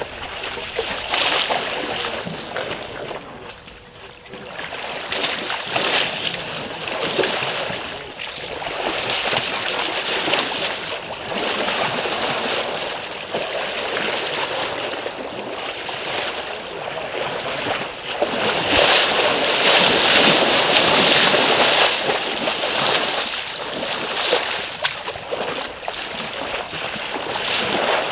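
African elephants wading and splashing in a shallow waterhole, the water sloshing and splattering unevenly, swelling loudest about two-thirds of the way through.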